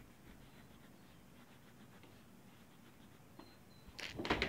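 Pencil drawing a line on notebook paper: faint, quiet scratching, then a short louder burst of scratching and rustling about four seconds in.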